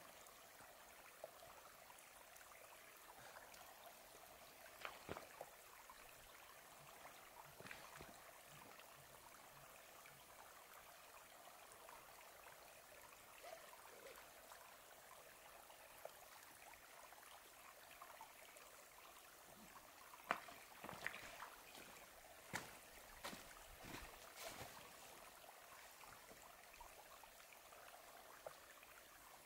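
Near silence: a faint steady hiss, with scattered soft rustles and clicks as hammock suspension lines are pulled and adjusted on the trees. Most of the clicks bunch together past the middle.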